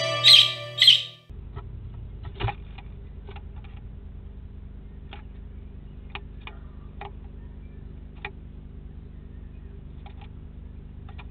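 A music jingle ends with two short chirps and cuts off about a second in. Then comes a steady low hum from the nest-box camera's microphone, with scattered light clicks and scratches as a great tit's claws grip and shift on the inside wall of the nest box.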